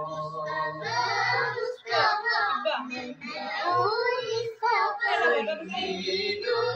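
A child's voice singing a song, the melody running on without a break.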